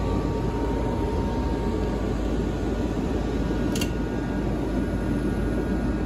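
Cooling fans of EG4 6500EX solar inverters running steadily, with one sharp click about four seconds in. The owner takes the clicking for the standby inverters' MPPT charge controller trying to start on weak morning sun and then shutting back off.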